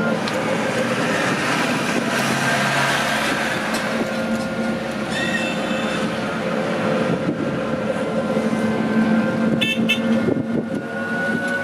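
Inside the cabin of a small three-wheeled tuk-tuk taxi moving through city traffic: its motor runs steadily under road noise, with short horn toots about five seconds in and again near ten seconds.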